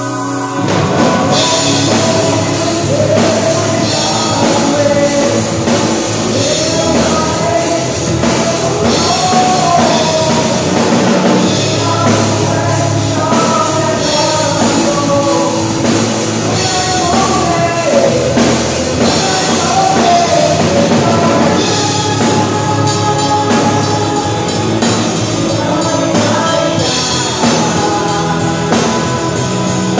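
A song with singing over a band with drums; the full band comes in just after the start.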